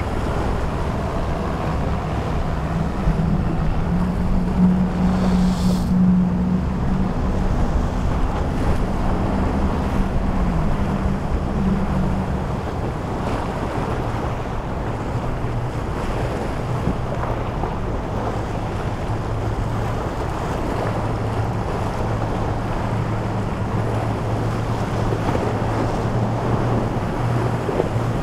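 Boat engines running as boats pass, heard over steady wind on the microphone and surf. A steady engine hum sits higher for the first twelve seconds or so, then gives way to a lower hum for the rest.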